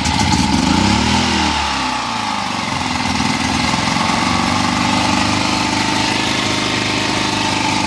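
ETQ portable generator's small gasoline engine, just pull-started on choke, with its gummed-up carburetor freshly cleaned. It catches, speeds up in the first second, drops back, then runs steadily.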